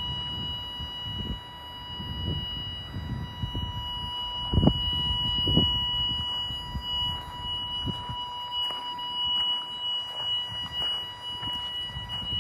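A steady high electronic buzzing tone that holds at one pitch throughout, under a low, gusty rumble of wind on the microphone and a few crunching footsteps on gravel.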